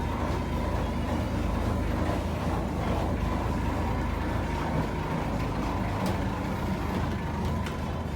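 Steady low engine drone with a faint high hum above it, a boat's motor running at an even speed.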